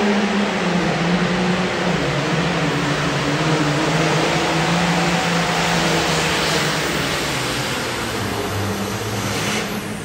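Modified pulling tractor's engine running flat out under heavy load while dragging a weight-transfer sled. It is very loud, with its pitch sagging slowly and then lifting a little near the end.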